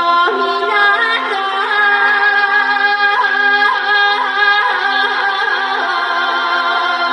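Music: a held drone chord with a wavering melody line gliding over it, and no drum beat.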